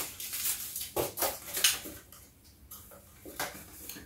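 Small camera accessories and their packaging being handled on a tabletop: a few light clicks, clatters and rustles, most of them in the first two seconds and one more near the end.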